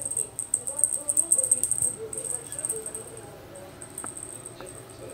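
Small jingle bell on a cat teaser toy jingling rapidly as Burmese kittens bat at it, the jingling thinning to occasional shakes after about two seconds.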